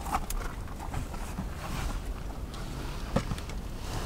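Wind rumbling on the microphone, with rustling and a few light knocks as a man is shoved into a car seat.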